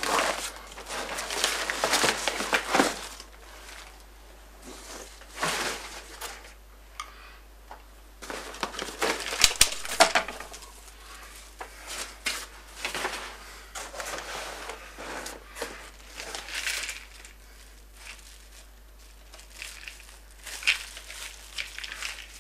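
Corrugated cardboard packing sheets being pulled out of a shipping box and handled: irregular rustling, crinkling and scraping in bursts, with quieter pauses between and a single sharp click about halfway through.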